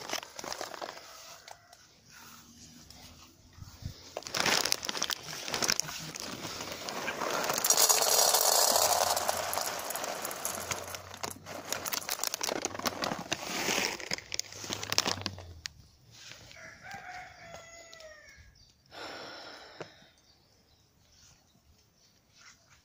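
A rooster crows loudly once, about eight seconds in, over rustling and clicking from a dry cat-food bag and bowl being handled. A few short falling calls follow near the end.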